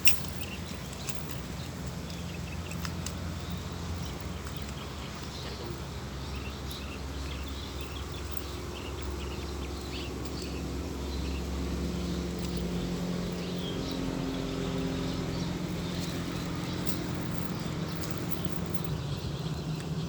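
Outdoor ambience: a steady low rumble with scattered faint bird chirps, and one sharp click at the very start.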